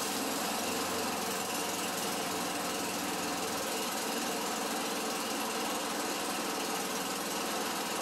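Snow thrower's small gasoline engine running steadily at a fast idle, just started after priming on its first run since last year.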